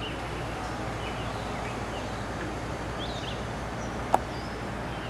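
Outdoor ambience: a steady low background noise with scattered short, high bird chirps. A single sharp click comes about four seconds in.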